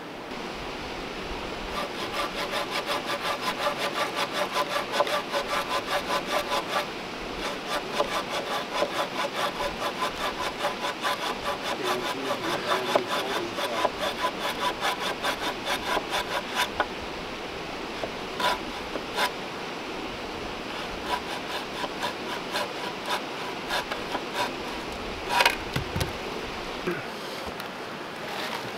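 Curved-blade hand saw cutting through a small log in quick, even strokes, with a short pause about seven seconds in. After about seventeen seconds the sawing gives way to scattered knocks of wood, one louder knock near the end.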